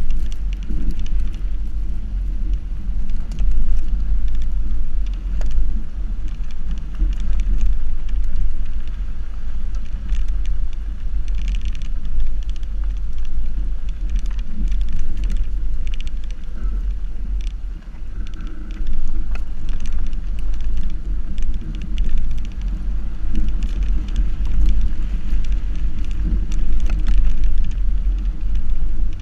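Subaru XV driving along a loose dirt track, heard from a camera mounted beside the front wheel: a steady low rumble of tyre and wind noise, with scattered ticks of gravel and grit under the tyre.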